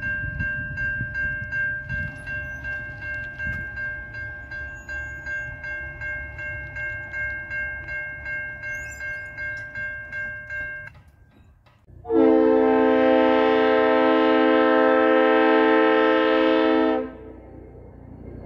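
Railway crossing bell ringing about twice a second over the low rumble of the passing freight train. After a break, a locomotive air horn sounds one long chord for about five seconds, the loudest sound here: the Nathan K5HL five-chime horn of CN ES44DC 2304.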